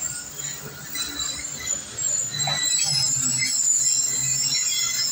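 Train running along the track with a low rumble and high-pitched squealing of steel wheels on the rails. It grows louder about two seconds in.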